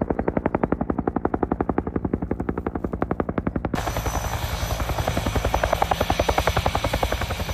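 Two-bladed Huey-style helicopter rotor beating in a rapid, even rhythm. About four seconds in, the sound switches to a closer helicopter on the ground, with a rushing noise and a high steady whine over the rotor beat.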